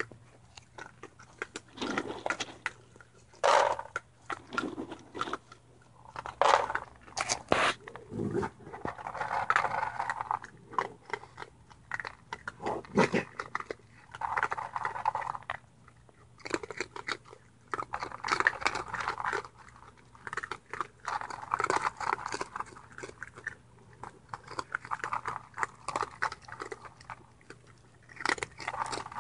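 Raccoons eating dry kibble, a steady run of irregular crunches and wet chewing as several animals bite and chew at once.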